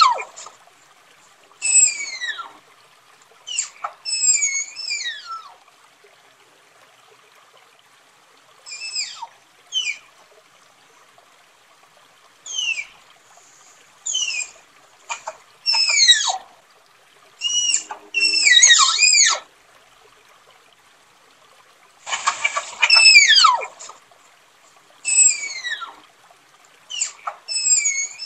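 Tapir giving a series of shrill, whistling squeals, each sliding steeply down in pitch, in short groups with pauses of a second or two between.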